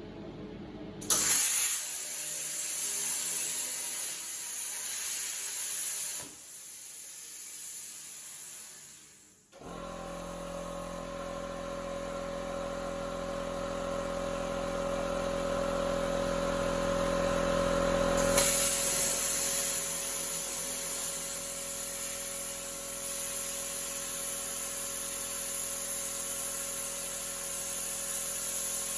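CNC plasma cutter torch hissing steadily while cutting metal. The hiss starts suddenly about a second in and breaks off about six seconds in. A steadier sound with a whining tone takes over from about ten seconds, and the hiss returns after about eighteen seconds.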